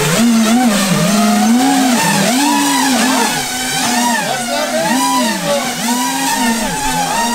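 Electric motors and propellers of a four-rotor VTOL RC model plane in hover, a loud buzzing whine whose pitch keeps swinging up and down several times a second as the motors speed up and slow down.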